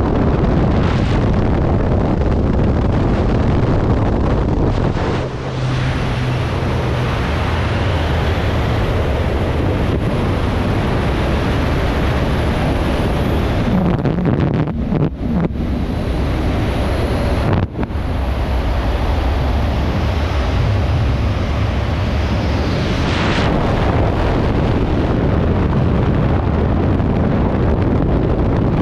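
Freefall wind rushing loudly and steadily over a skydiver's camera microphone, dipping briefly a few times.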